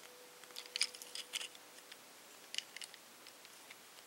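Small plastic clicks of a Transformers Mechtech Bumblebee toy figure's parts being worked by hand during transformation: a few faint clicks a little under a second in and again around two and a half seconds.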